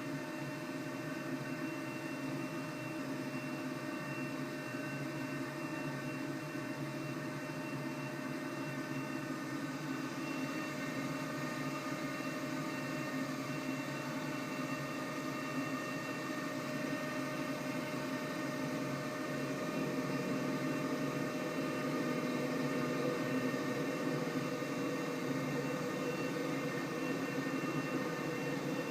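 CNC machining centre running steadily while machining, a whine of several steady tones over a constant mechanical hiss, growing a little louder about two-thirds of the way through.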